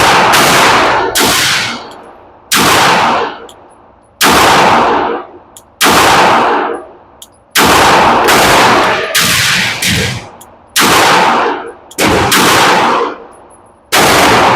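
9mm Glock 19 pistol fired in slow aimed shots, about ten in all, one every second and a half or so, each shot followed by a long ringing echo.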